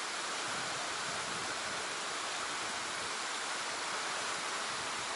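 Fast river rapids rushing through a narrow rock channel, a steady, even rush of white water.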